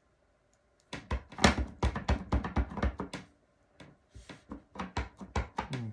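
Rapid light taps and knocks, several a second, of a clear photopolymer stamp on an acrylic block being tapped onto an ink pad to ink it, then a second run of taps as the block is set down on the card stock.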